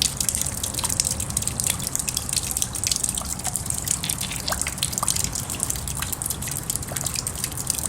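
Rain falling and dripping steadily, with many irregular small drips and plinks over a constant wash of rain.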